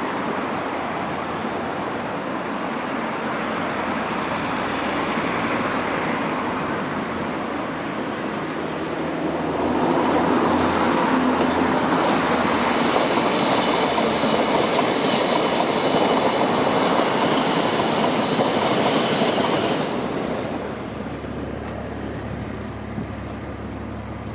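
A train running along the track, its wheel and rail noise building to its loudest from about ten to twenty seconds in, then dropping away.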